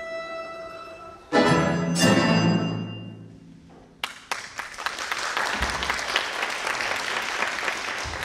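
A Russian folk-instrument orchestra of domras and balalaikas ends a piece on two loud chords that ring out and die away. About four seconds in, the audience breaks into applause.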